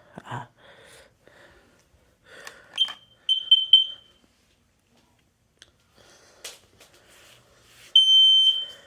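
Combination smoke and carbon monoxide alarm being tested with its test button. There is handling noise and a click, a quick run of short high chirps about three seconds in, and near the end a loud, steady high beep as the alarm pattern starts.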